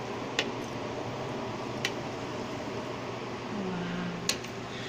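A metal fork clicking sharply against a ceramic plate three times while twirling noodles, over a steady background hiss.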